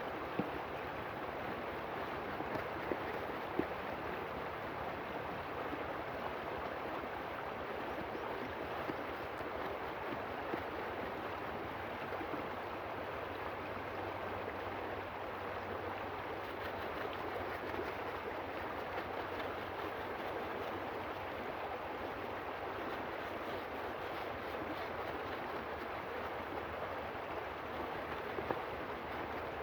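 River water flowing steadily, with a few brief knocks about the first few seconds and once near the end.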